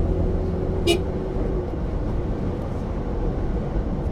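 Steady low road and engine noise of a vehicle driving on a paved road, with a short sharp high-pitched sound about a second in.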